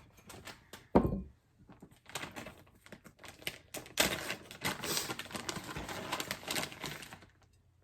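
Close-miked crunching of a crisp taco shell being chewed, a rapid run of crackles that is loudest over the last few seconds and then stops, with one heavy thump on the table about a second in.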